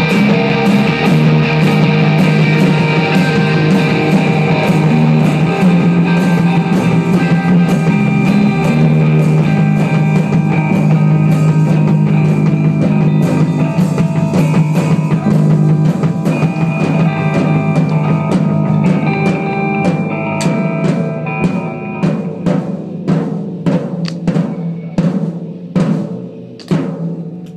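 Rock music with drums and a sustained low guitar or bass chord. From about twenty seconds in, the steady playing gives way to a string of separate drum and cymbal hits while the sound dies away, like a song's ending.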